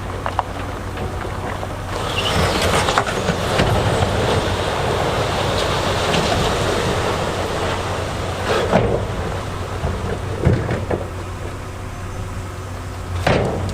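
Diesel heavy equipment running while big stones rumble and grind for several seconds, then a few separate sharp knocks of rock on rock or steel.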